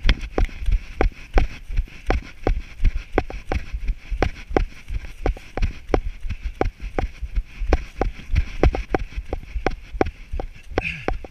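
A runner's footfalls on a dirt and grass trail, heard through a body-worn camera as a steady beat of thuds at about three steps a second.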